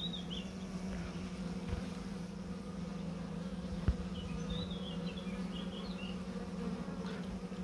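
Honeybees buzzing as they fly and crawl around a hive entrance: a steady hum. A single sharp click about four seconds in.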